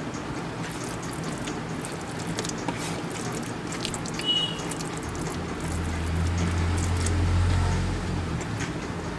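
Eating sounds: fingers mashing soft, ghee-laden rice against a steel plate, with wet mouth clicks from chewing. A brief high squeak comes about four seconds in, and a low rumble rises about five and a half seconds in and fades before the end.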